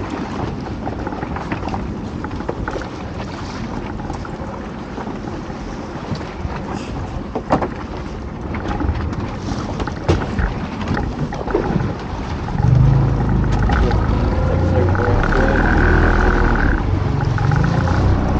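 Wind and choppy water against a small boat, with a few sharp knocks from lobster pots being handled. About two-thirds of the way in, a motor starts running, a low drone with a steady whine on top for a couple of seconds.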